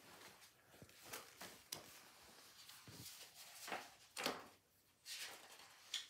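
Faint rustling of a picture book's pages being handled and turned, a few short swishes, with the sharpest one about four seconds in.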